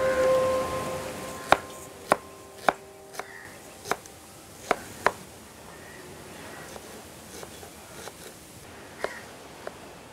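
Kitchen knife slicing onions on a cutting board: sharp, irregular knocks, several in quick succession in the first half and a few more near the end. Background music fades out during the first second.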